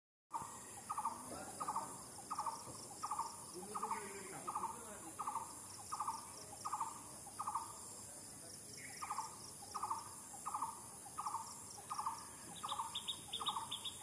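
A bird repeating the same short, buzzy call note about every three-quarters of a second, with one brief pause near the middle, over a steady high insect drone. Near the end a second bird joins with quick, higher chirps.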